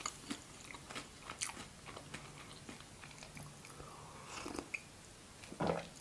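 Close-miked mouth sounds of chewing a Raffaello coconut-almond sweet, faint, with occasional small crunches of the almond centre. Near the end comes a sip of tea from a mug.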